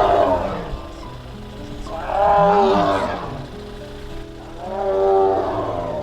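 Amur tiger calling: three drawn-out, moaning cries about two and a half seconds apart, over background music.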